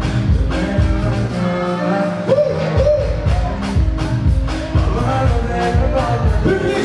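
Loud music with a steady beat of about two strokes a second and a sung vocal line.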